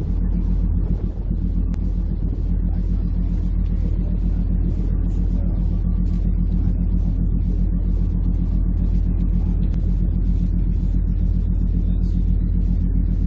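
Ferry's diesel engines running, a steady deep rumble with a constant low hum.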